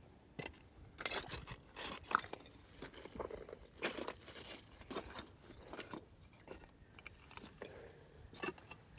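Footsteps crunching on a rough trail, about two uneven steps a second.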